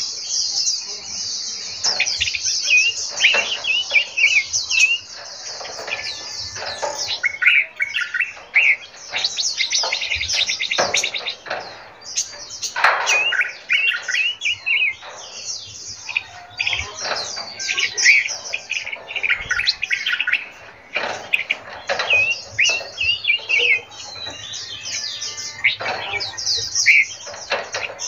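Several small caged songbirds chirping and twittering together: a dense stream of rapid, high-pitched chirps with shorter whistled notes lower down, broken by brief pauses.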